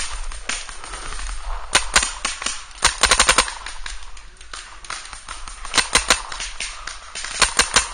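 Empire Vanquish electronic paintball marker firing close to the microphone in quick strings of shots: a pair about two seconds in, a fast string of about six around three seconds, and shorter strings about six and seven and a half seconds in. Fainter single shots are heard between the strings.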